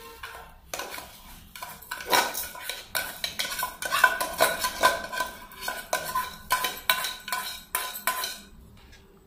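A spoon repeatedly scraping and knocking against a metal bowl as rice is pushed out of it into a pressure cooker, the bowl ringing with each stroke. The clatter is irregular and runs until shortly before the end.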